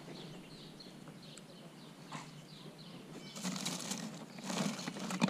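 Faint short, falling chirps of a small bird repeating over the first couple of seconds, then two bouts of rustling and scuffing, ending in a sharp knock.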